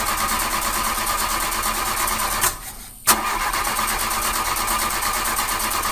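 Car engine cranking on its starter without catching, in two long tries separated by a short break about two and a half seconds in. Each try starts and cuts off abruptly, like a dubbed sound effect of a car that refuses to start.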